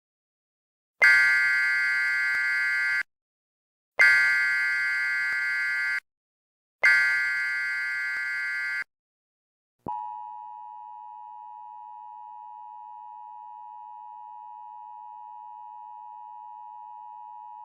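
Emergency Alert System alert: three roughly two-second bursts of buzzing SAME header data tones, then the steady two-pitch EAS attention tone for about eight seconds.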